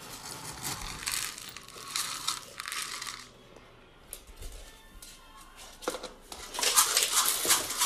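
Dry pet-food pellets rustling and rattling as a scoop digs into a tub of them, in bursts with a quieter lull partway through.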